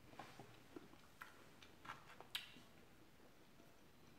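Faint mouth sounds of someone chewing food: a few soft, scattered clicks and smacks, the loudest about two and a half seconds in.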